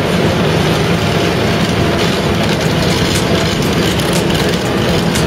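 Vögele asphalt paver running as it lays asphalt: a loud, steady heavy-machinery engine noise.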